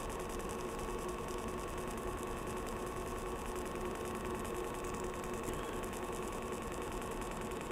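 Pulsed TIG welding arc from an Everlast 251Si on 14-gauge metal, the current pulsing 10 times a second, heard as a steady electric buzz and hum.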